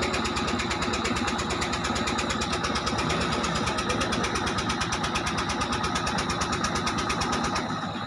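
Ferry boat's engine running steadily with a rapid, even beat, dropping away a little before the end.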